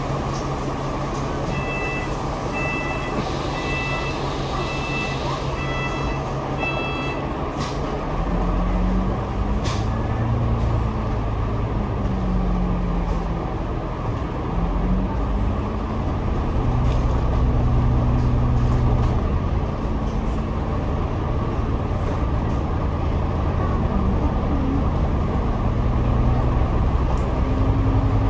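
Double-decker bus heard from the upper deck: the engine idles steadily while a run of about half a dozen evenly spaced warning beeps sounds. After about eight seconds the engine revs up and the bus pulls away, its engine note rising and falling as it goes through the gears.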